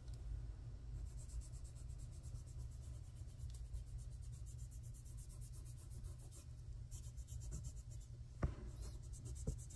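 Faint scratchy rubbing of a sponge-tip applicator burnishing chrome nail powder onto a press-on nail, in quick repeated strokes, over a low steady hum, with one light click near the end.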